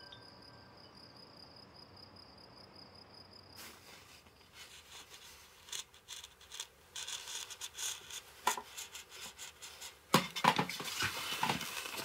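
Engraving tool cutting into a woodblock: a run of short, irregular scraping strokes, denser and louder over the last two seconds. It starts suddenly about three and a half seconds in, after a faint steady high tone.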